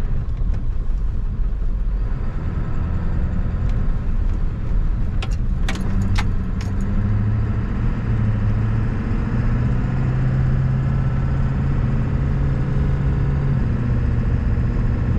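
The 7.3-litre Power Stroke turbo-diesel V8 of a 1997 Ford F-350 running steadily under way, heard from inside the cab with road rumble. A few sharp clicks come about halfway through.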